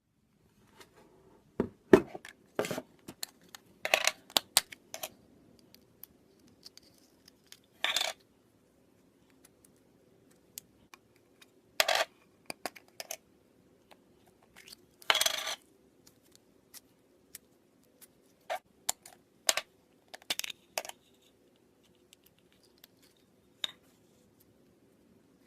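Scattered sharp clicks, taps and brief scratchy sounds of small objects being handled, with a faint steady hum behind them.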